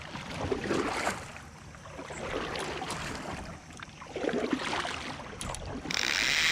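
Water splashing and knocking around a fishing kayak, with a loud steady rush of hiss starting about six seconds in.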